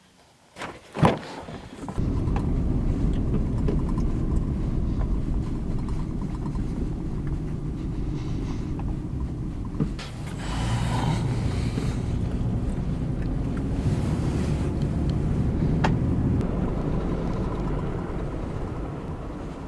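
A sharp knock, then a motor vehicle's steady low running rumble that starts suddenly about two seconds in.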